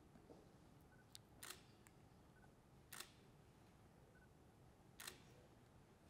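Near-silent hall in which a camera shutter clicks softly three times, a second or two apart.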